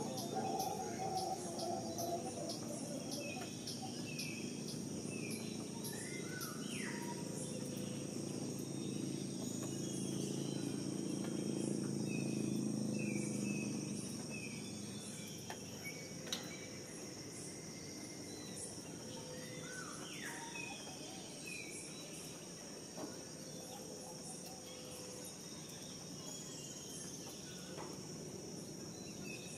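Insects trilling steadily at two high pitches, with birds calling in short, repeated downward notes and a few sweeping whistles. A low rumble sits underneath for the first half and fades out about halfway through.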